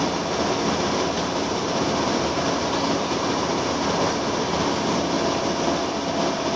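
Steady cabin noise of a Scania L94UB Wright Solar single-deck bus underway: engine, road and wind noise holding even throughout.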